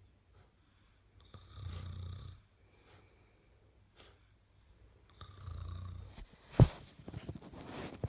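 A woman snoring: two slow low snores a few seconds apart. A single sharp knock comes just after the second snore, followed by a flurry of small clicks.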